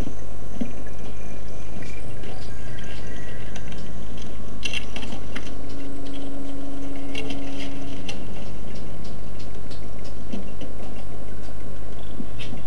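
Steady low electrical hum, with faint scattered clicks and a brief held tone in the middle.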